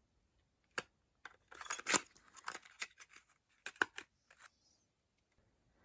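Cosmetic products and their packaging being handled: a few sharp plastic-like clicks, about three, with short rustles in between, fairly faint.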